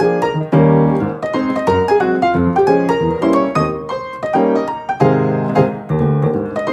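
Background music: a lively piano tune of quick, short notes.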